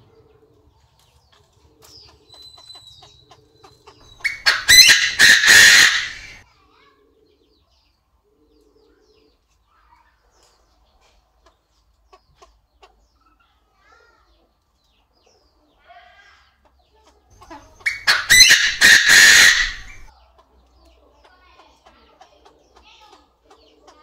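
Chinese francolin (đa đa) calling twice, about thirteen seconds apart; each call is a loud, harsh run of rapid notes lasting about two seconds.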